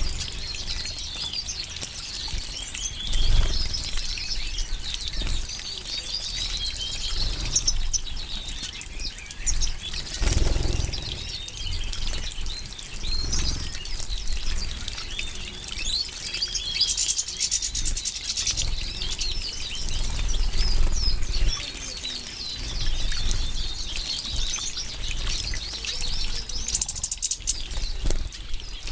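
A flock of goldfinches twittering continuously while they bathe, with splashing and wing-fluttering in shallow water that gives a few louder bursts.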